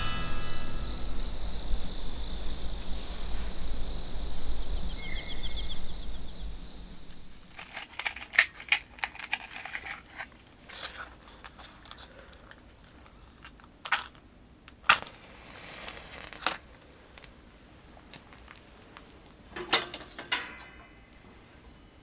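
A steady, finely pulsing high trill, like night insects, for the first several seconds. After that come rustling and crinkling with scattered sharp clicks and knocks, as hands handle a convection kerosene stove in the dark before lighting it.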